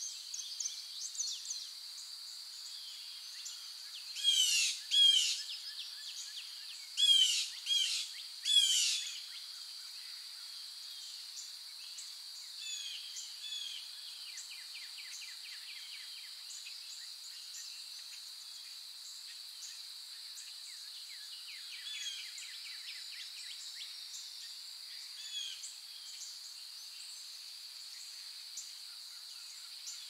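Wild birds calling over a steady high-pitched hiss. Five loud, sweeping calls come in two bunches about four to nine seconds in, followed by softer, quicker chirps and trills.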